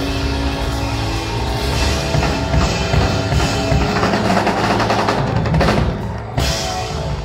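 Live band playing at full volume, drum kit to the fore with fills over electric guitar, the music dropping away sharply about six and a half seconds in.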